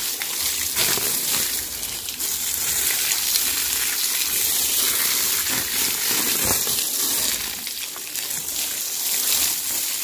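Strong jet of water from a hose fed directly by a pump, spraying steadily onto a buffalo's hide and splattering on the muddy ground as the animal is bathed.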